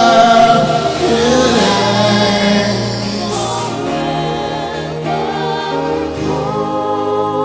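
Live gospel worship music: singers hold a sung line over the band, and the voices thin out around halfway, leaving steady held chords.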